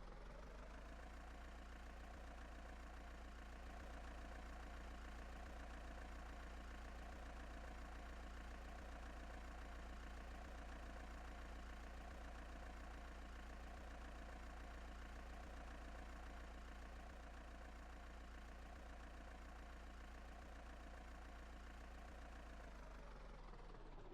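Faint heavy machine engine revving up at the start, running steadily at raised speed, then dropping back down near the end.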